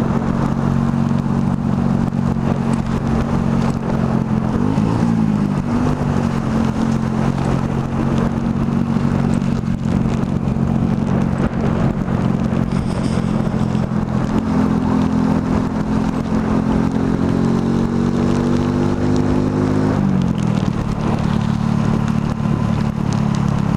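Motorcycle engine running under way through traffic. Its pitch dips briefly about five seconds in, then rises steadily as it accelerates from about fourteen seconds and drops back about twenty seconds in.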